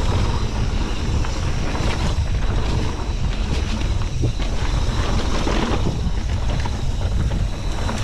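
Mountain bike riding downhill on a dirt trail: loud, steady wind rush on the microphone over the rattle of the bike, with scattered clicks and knocks.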